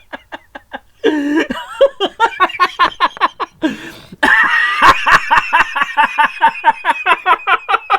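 A man doing an exaggerated imitation of a woman's laugh: rapid, loud staccato laughing pulses about four or five a second. Partway through it jumps higher in pitch into a strained, squealing laugh.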